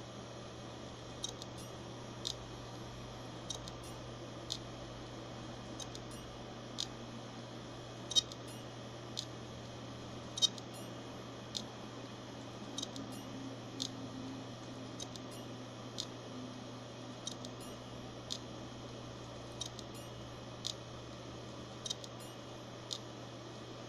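Hard drive running with a steady low hum while it makes sharp, irregular clicks, roughly one a second, two of them much louder than the rest.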